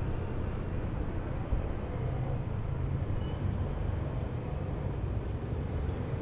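Honda Beat scooter's small single-cylinder engine running steadily at low speed, mixed with road and traffic noise from the slow-moving motorcycles and cars around it.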